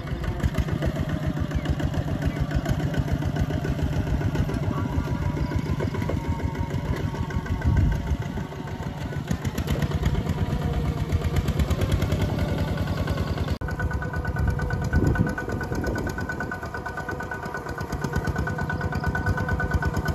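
Two-wheel walking tractor's single-cylinder diesel engine chugging steadily as it pulls a plough through wet, muddy soil. The sound changes abruptly about two-thirds of the way through.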